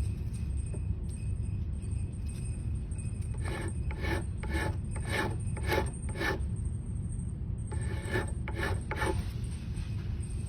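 Hand filing on a cello nut: a run of about six short scraping strokes around the middle, then a few more near the end, over a steady low hum.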